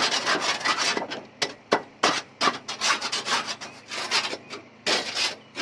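Rough scraping strokes over the asphalt shingles around a roof vent pipe as the spot is cleaned by hand. The strokes come several to the second, with short breaks between runs.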